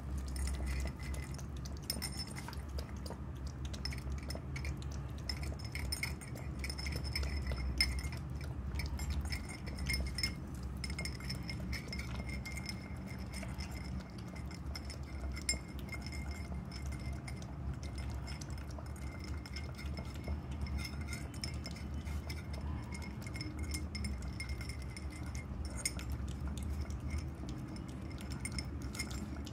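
Shih Tzu puppy eating from a ceramic bowl: many quick, light clinks and ticks against the bowl.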